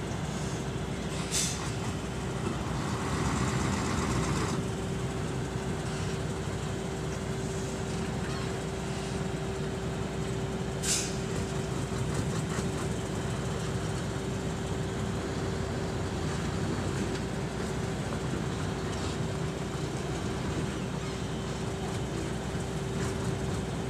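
Hyundai dump truck's D8AY diesel engine running steadily while the loaded truck moves slowly, with a steady whine over the engine note. There are two short hisses, one about a second and a half in and one about eleven seconds in.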